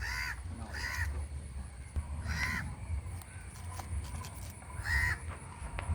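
A crow cawing four times, short harsh calls spaced irregularly a second or more apart, over a low rumble.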